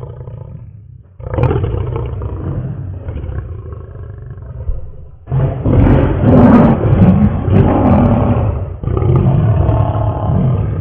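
Male lion roaring: a run of long calls with short breaks between them, loudest from about five seconds in.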